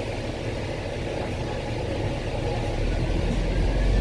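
Dennis bus engine running, heard from inside the passenger cabin, with a deep low rumble building about three seconds in as the bus pulls harder.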